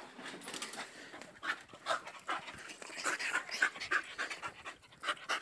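A dog panting quickly and hard, about three breaths a second, the breaths getting stronger about a second and a half in.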